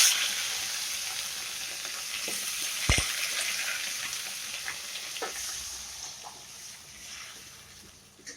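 Mutton pieces sizzling in hot oil with mustard seeds and curry leaves as they are stirred in a pan. The sizzle fades steadily, and a spoon knocks against the pan a few times, most sharply about three seconds in.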